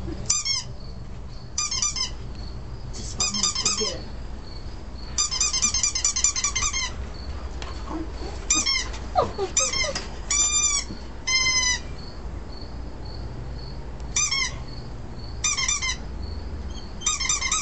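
Squeak sounds played through a cell phone's speaker: about ten short bursts of quick, high-pitched squeaks, each half a second to a second and a half long. Two slower, longer squeals come a little past the middle.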